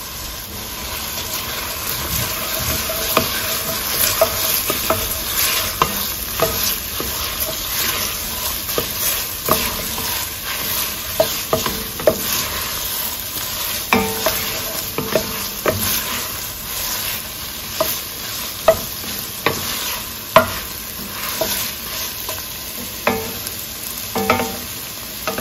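Chopped vegetables with tomato paste sizzling in hot oil in an enamelled cast-iron Dutch oven while a wooden spoon stirs them, with frequent short scrapes and taps of the spoon against the pot.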